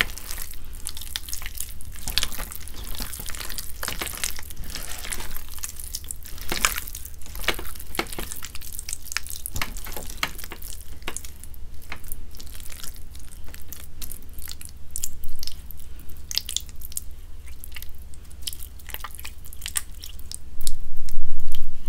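Hands squeezing and kneading wet gym chalk paste mixed with charcoal powder: a steady run of wet squelches and small crackling pops. A louder low thud comes near the end.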